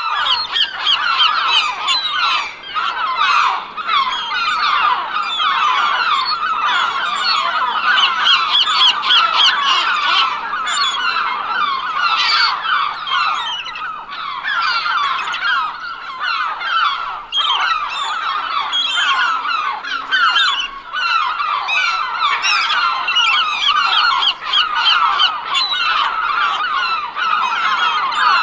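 A flock of seagulls calling: many overlapping squawks and cries with no break.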